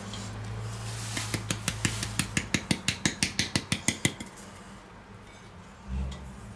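Metal shaker tin of sugar shaken over a plate: a fast run of sharp rattling clicks, about six a second for some three seconds. A dull bump follows near the end.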